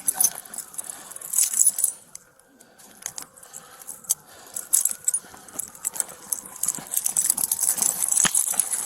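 Metal keys and handcuffs jingling and clinking in a run of short clicks, busiest at the start, about a second and a half in, and again near the end.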